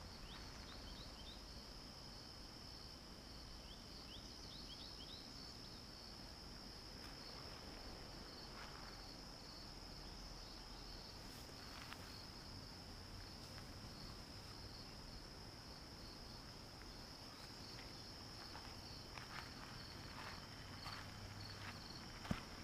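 Crickets chirping in a steady high chorus, with a few faint footsteps on gravel near the end.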